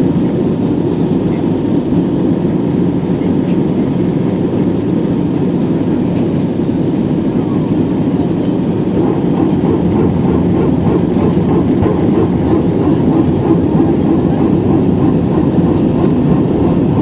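Steady cabin noise inside an Airbus A320-214 in flight: the rumble of airflow over the fuselage and the CFM56 turbofan engines, with a faint steady whine.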